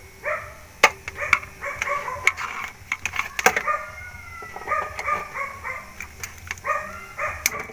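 A dog yapping in quick runs of short, high-pitched calls, with a few sharp clicks between them.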